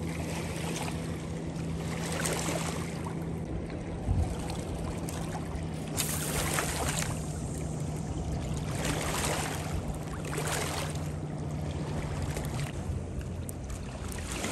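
Small waves lapping and washing against a rocky, coral shoreline in soft swells every second or two, over a steady low hum. A single short knock about four seconds in.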